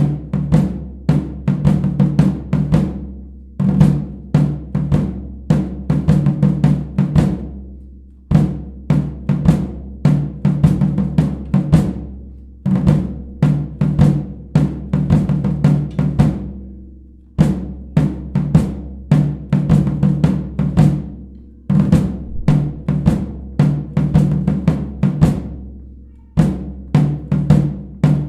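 Marching drum cadence on snare and bass drums: fast rhythmic patterns with rolls, played in repeated phrases of about four seconds, each ending in a short break.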